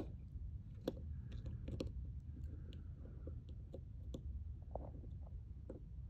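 Small metal clicks and scrapes, irregular and scattered, as a small flat-blade screwdriver works a spiral retaining ring into its groove on an ORI strut's lower mount. Under them runs a low steady hum.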